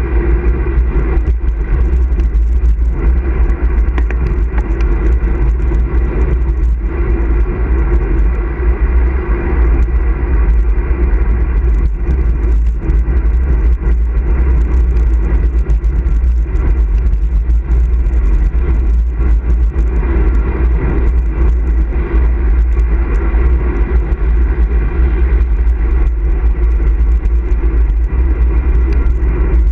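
Wind rushing over the microphone of a handlebar-mounted action camera on a road bike riding along a paved road: a loud, steady low rumble with road noise over it.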